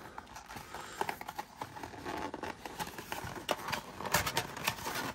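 Cardboard trading-card box being handled and opened: flaps rubbing and scraping with a run of small clicks and rustles, louder about four seconds in as a wrapped card pack is slid out of the box.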